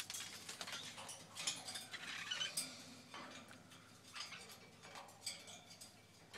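Pet parrots' claws and beaks clicking and scratching lightly and irregularly, with a few soft high chirps about two seconds in.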